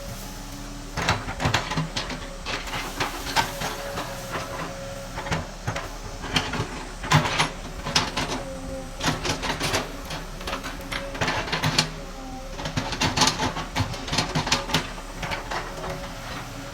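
A steady machine hum with many irregular clicks, clatters and knocks over it, starting about a second in.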